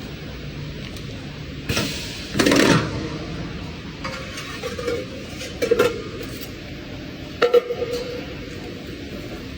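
A sheet-metal rolling machine working plate, with a run of metallic clanks and knocks over a steady background hum. There are about half a dozen hits, the loudest about two and a half seconds in and two more sharp ones near the end.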